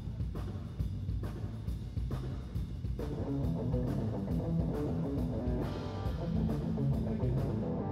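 Rock band playing live on stage: drums keep a steady beat under bass and electric guitar, the playing growing fuller about three seconds in. The band stops together at the very end, and the last notes ring in the hall.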